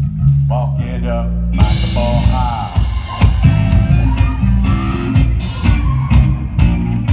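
Live rock band playing: a bass guitar line with bent guitar notes over it. About a second and a half in, the drum kit with cymbal hits and the electric guitar join in full.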